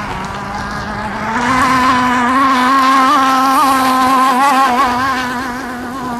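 Modified 29.5 cc Zenoah two-stroke engine of an RC gas speedboat running flat out with a high-pitched whine. The pitch is lower at first, climbs about a second in, then holds steady with a slight warble.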